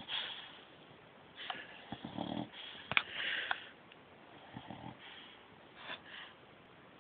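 A puppy snoring in its sleep, with uneven breaths about every second. A sharp click about three seconds in is the loudest sound.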